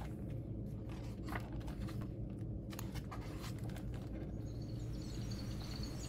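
Pages of a hardcover picture book being handled and turned, a few soft rustles and taps over a low steady hum. About two-thirds of the way through, faint high birdsong chirping begins and carries on.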